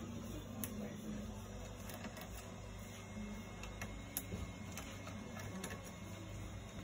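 Small screwdriver turning the heatsink screws on a laptop motherboard: faint, irregular small clicks and ticks over a steady low hum.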